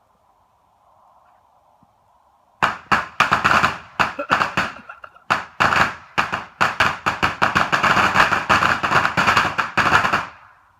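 A brick of firecrackers going off in a rapid, crackling string of sharp bangs, starting about two and a half seconds in and lasting some eight seconds, with a brief pause midway before it stops.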